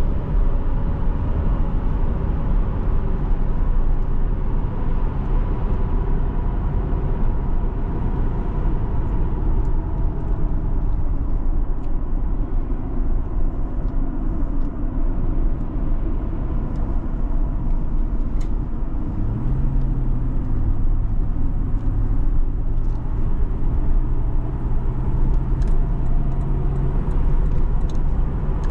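Supercharged Toyota Land Cruiser V8 driving along: a steady low engine and road rumble. A low engine note comes up about two-thirds of the way through and holds steady for several seconds.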